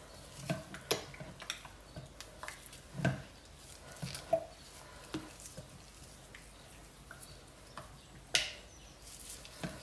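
Hand-stirring thick cold-process soap batter to mix in the fragrance oil: a spatula scraping and knocking against the mixing container in irregular clicks, with louder knocks about three seconds in and again near eight seconds.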